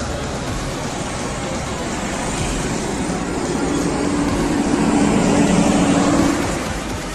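Volvo B11R coach's rear-mounted diesel engine and tyres as the bus drives close past, over surrounding road traffic. The engine note swells to its loudest about five seconds in, then fades away.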